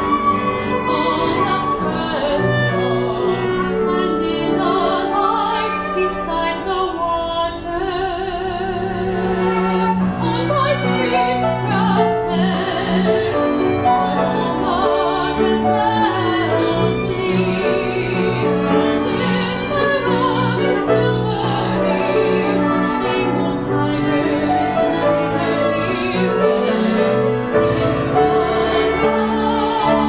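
Mezzo-soprano singing with vibrato in an art song, over a chamber ensemble of bowed strings (violin, viola, cello, double bass), flute, clarinet and piano.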